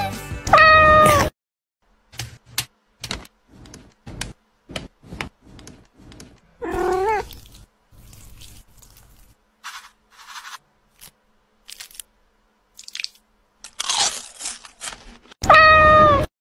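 A cat meows between a string of short kitchen taps and clicks: a loud cry about a second in and again near the end, and a wavering meow about seven seconds in.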